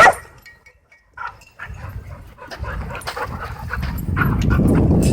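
A dog barks once, short and loud, then scattered light clicks and scuffles follow; a low rushing noise builds up and is loudest over the last second.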